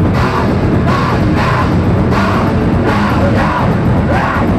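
Technical death metal band playing live at full volume: heavily distorted guitars, bass guitar and a pounding drum kit, with the vocalist's growled vocals repeating in short bursts over the top.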